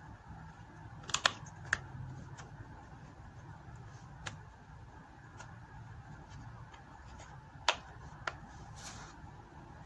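Sharp clicks and taps of small RC truck parts being handled while a wheel is fitted. There are a few loud clicks about a second in and another pair near eight seconds, with fainter ticks in between, over a low steady hum.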